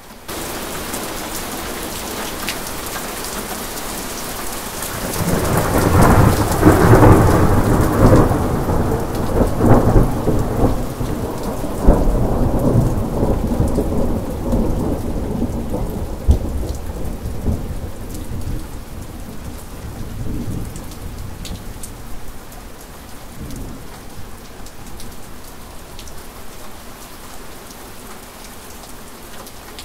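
Steady rain, with a long thunderclap starting about five seconds in. It is loud with sharp cracks for several seconds, then rumbles away slowly until only the rain is left.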